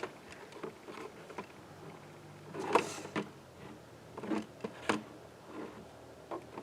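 Scattered clicks and knocks of objects being handled, with a sharper knock about three seconds in and two smaller ones a little later.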